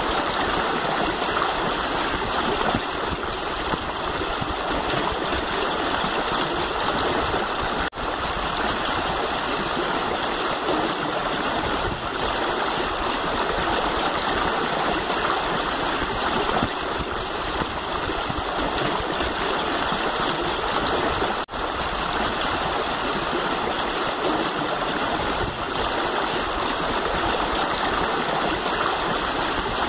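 Steady rush of flowing river water, dropping out for an instant twice.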